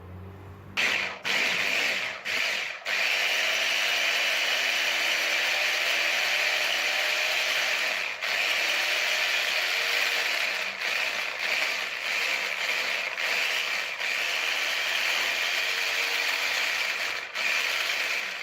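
Blender running on a thick hazelnut paste with cocoa and powdered sugar. It starts about a second in, cuts in and out a few times, then runs steadily with short dips in level.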